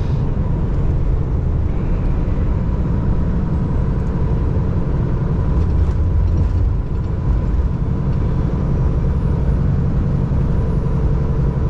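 Steady low drone of a semi-truck's engine heard inside the cab, with no distinct events.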